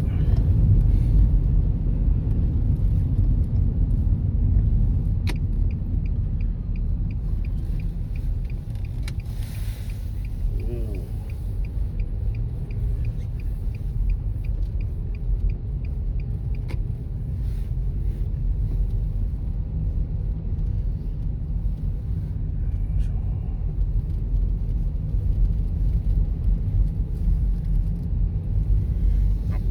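Steady low rumble of a car being driven, with road and engine noise heard from inside the cabin. A run of fast, faint ticks comes a few seconds in.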